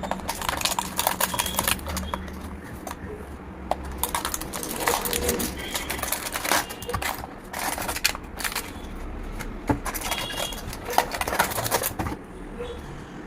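Charger packaging being handled and opened: irregular runs of sharp clicks and crinkling from plastic and cardboard, coming in clusters with short lulls between them.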